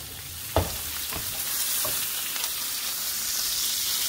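Beef roast searing in hot oil in a skillet: a steady sizzle that grows louder after about a second and a half as the meat is lifted with a fork. A sharp metal clink about half a second in, with a couple of lighter taps after it.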